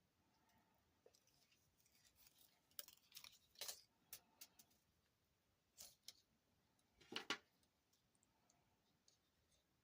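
Faint, scattered clicks and rattles of small beads being slid off their strand and dropped into a plastic baggie. The louder clicks come in clusters about three seconds in and again about seven seconds in.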